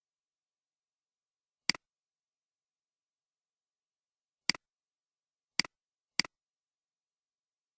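Four computer mouse clicks, each a sharp press followed at once by a softer release, at uneven gaps with silence between.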